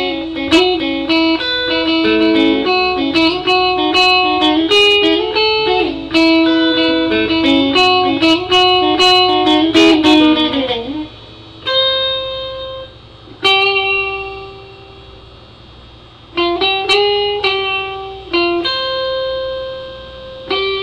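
Homemade Danelectro-copy electric guitar with a cutting-board plastic body and GFS Pro Tube lipstick pickups, on the middle pickup setting where the two pickups are wired in series. It plays a run of quick picked notes for about ten seconds, then a handful of single notes that ring out and fade, with short pauses between them.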